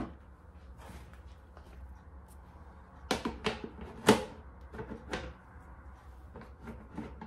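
Plastic Thermomix Varoma steamer and lid being fitted in place: a handful of short plastic knocks and clatters, the loudest about four seconds in.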